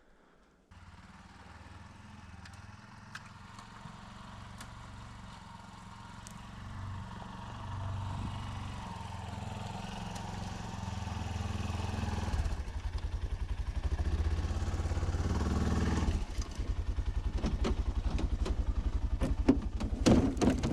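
Engine of an Arctic Cat Prowler side-by-side utility vehicle, growing steadily louder as it drives up. From about twelve seconds in it is close by, running with an even low chugging pulse, and a few clunks come near the end.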